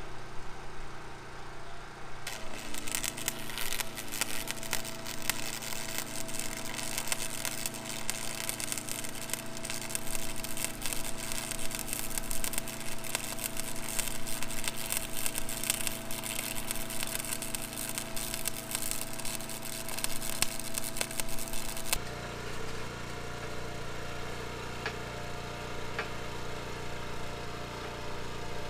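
Arc welding crackle from about two seconds in, over the steady hum of a running engine, while two steel rods are welded together. The crackle stops abruptly near the end, leaving a steady engine hum.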